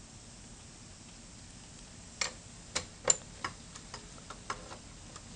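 Ratchet wrench clicking in a run of sharp, unevenly spaced clicks starting about two seconds in, as a cover bolt on a GY6 scooter engine is worked loose.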